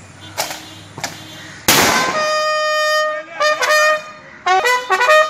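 A single loud rifle shot fired into the air a little under two seconds in, preceded by two faint clicks. A brass band of bugles and trumpets comes in straight after, sounding held fanfare notes that step from one pitch to another.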